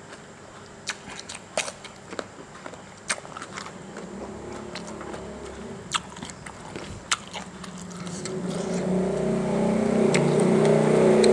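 Chewing and biting of instant-noodle salad, with scattered sharp clicks. Over the last three seconds a vehicle engine grows steadily louder and becomes the loudest sound.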